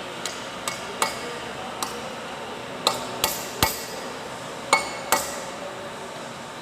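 Hammer striking metal: about nine sharp, irregularly spaced taps, each with a short metallic ring, as new turbine blades are fitted to a turbocharger rotor.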